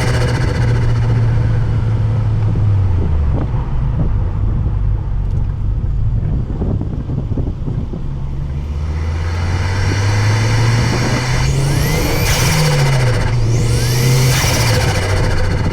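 Ford Focus XR5 Turbo's turbocharged 2.5-litre five-cylinder engine revving, its note easing off early, then climbing steadily before the throttle is lifted. Each lift near the end brings a rising turbo whistle and a burst of compressor flutter, twice.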